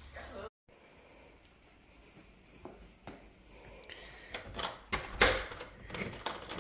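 Background music with singing cuts off about half a second in. After a quiet stretch of room tone, a series of sharp clicks and knocks, as of things being handled, starts about four seconds in and is loudest near five seconds.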